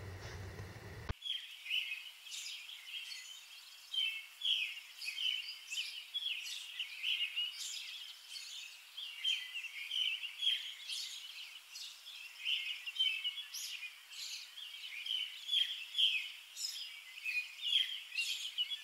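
Birds chirping: many short, high calls overlapping in a continuous chatter, starting abruptly about a second in.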